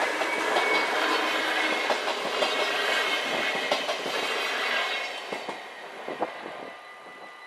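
InterCity train passing over a level crossing, wheels clattering with sharp clicks over the rail joints, the noise fading away over the last two seconds as the train moves off.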